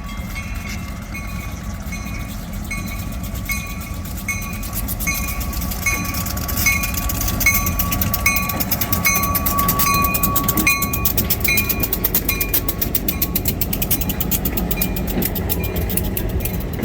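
Train rolling past with a steady rumble and wheel clatter, loudest in the middle as the cars go by, under a bell-like ding that repeats a little more than once a second. A thin steady whine grows through the middle and fades out later.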